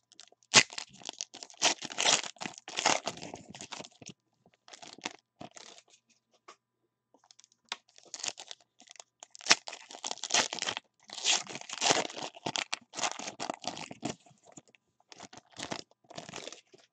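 Foil wrappers of 2019 Certified football card packs being torn open and crinkled by hand: bursts of crackling and tearing, with a brief pause about six seconds in.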